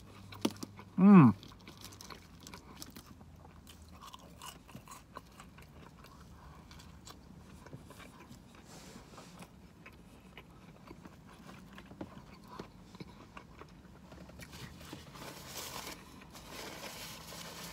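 Close-up chewing and biting of a fried chicken sandwich and french fries: soft crunches and wet mouth clicks throughout. A short, loud "mmm" comes about a second in.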